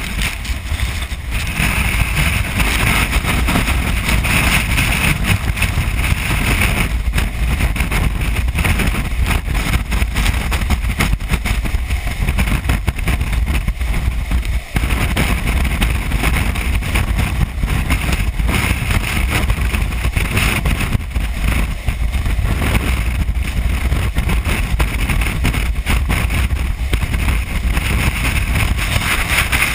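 Strong storm wind, gusting at what is estimated as around 60 mph, buffeting a GoPro's microphone: a loud, constant low rumble with rushing noise that swells and eases in gusts.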